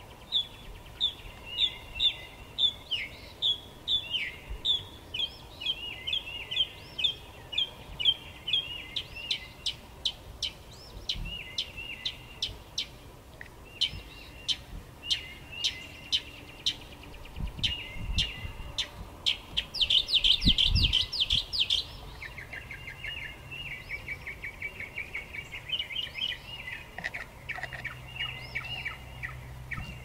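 Brown thrasher singing: a long, unbroken run of varied phrases of quick notes, loudest in a dense phrase about two-thirds of the way through.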